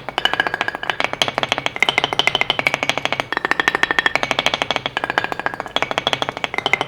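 Music: a fast, even stream of short plucked or struck notes, with the melody shifting between a few pitches every second or so.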